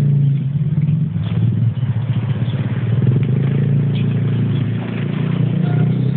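A steady low droning hum, like a small motor running.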